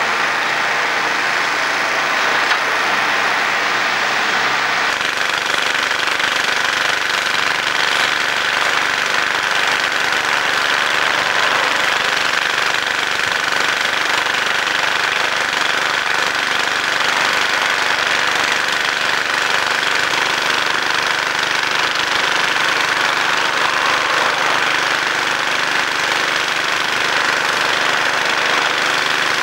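Diesel engine of on-track engineering machinery running steadily, with a constant mechanical clatter and hiss; the low hum shifts slightly about five seconds in.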